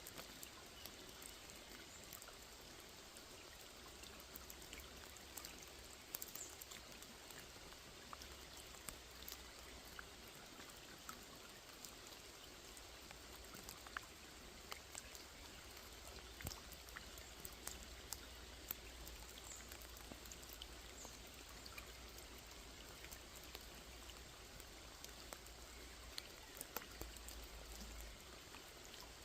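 Rain falling on a small lake: a faint, steady hiss of water with many scattered, irregular drop ticks.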